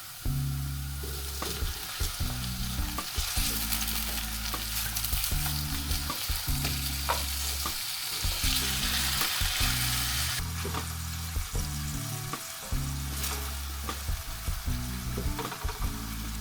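Food frying in a pan, sizzling steadily and louder in the middle, with clicks of a utensil stirring it.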